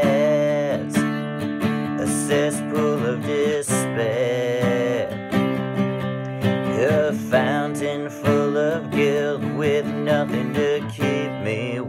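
Strummed acoustic guitar playing an instrumental break in a country-style song, with a bending lead melody line over the chords.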